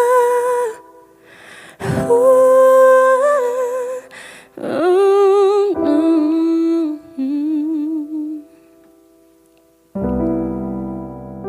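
Pop ballad ending: a male singer holds wordless sung notes with vibrato in three phrases, then trails off in softer runs. After a short near-quiet pause, sustained piano chords come in near the end.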